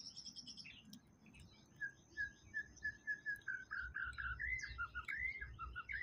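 White-rumped shama singing: a run of repeated whistled notes begins about two seconds in, then grows more varied and climbs in pitch near the end. Fast, high chirping from other birds runs underneath, and there is low rumbling from about four seconds in.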